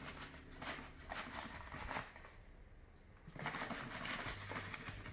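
Dry cat litter, including tofu litter pellets, crackling and pattering as it is poured and handled in a plastic litter box. The clicks thin out for about a second after two seconds in, then the pouring rustle resumes.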